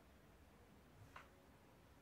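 Near silence: quiet room tone, with one short faint click just after a second in.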